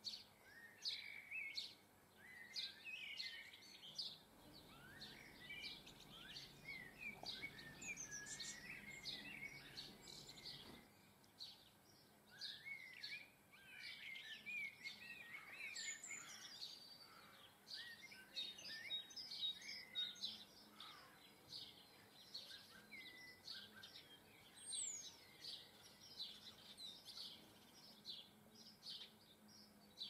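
Faint small garden birds chirping and twittering, many short calls overlapping throughout, with quick fluttering phrases among them.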